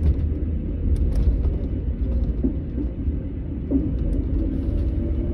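Setra S 431 DT double-decker coach under way: a deep, steady engine and road rumble with faint engine tones and scattered clicks and rattles.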